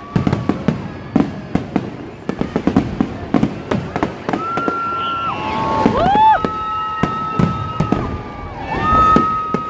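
Fireworks display: a rapid run of bangs and crackling bursts. In the second half several high, held whistling tones sound over them, each sliding up at the start and dropping away at the end.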